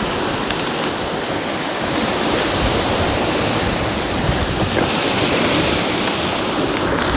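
Steady rushing wind buffeting the microphone, with a gritty low flutter.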